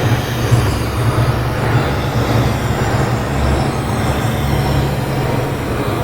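Synthesized ambient sound effect: a steady, deep rumbling drone with a noisy wash above it, with no distinct hits or beat.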